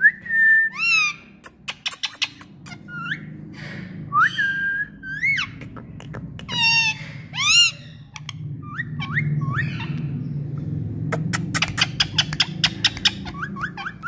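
Indian ringneck parakeets calling: short whistled notes, some sliding up and down and some held at one pitch, mixed with runs of quick sharp clicks that come thickest near the end. A low steady rumble lies underneath.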